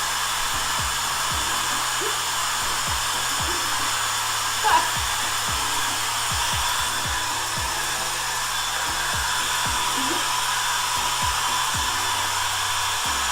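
Steady rushing noise of a small electric blower running throughout, with background music underneath. A brief louder sound about five seconds in.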